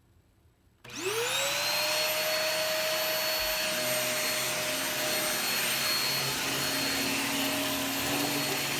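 Vacuum cleaner switched on about a second in, its motor whine rising quickly as it spins up, then running steadily.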